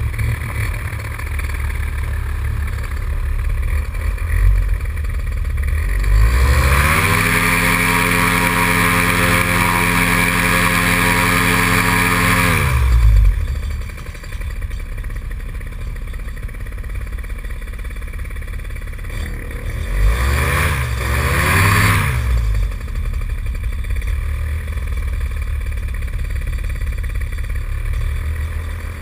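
Paramotor engine and propeller idling, revved up and held at high throttle for about six seconds before dropping back to idle, then briefly revved twice more near the end.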